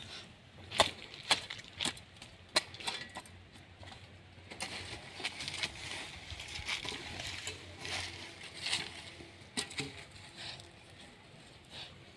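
Light crunching and clicking of dry soil clods and fallen leaves being moved around the base of a newly replanted tree. A handful of sharp ticks comes in the first few seconds, then a stretch of soft rustling.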